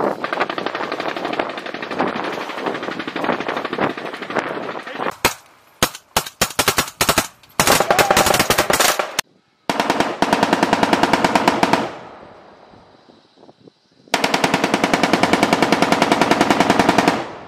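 Automatic gunfire: a dense volley of rapid shots, then scattered single shots and short bursts, then two long, even machine-gun bursts of about two and three seconds, each cutting off abruptly.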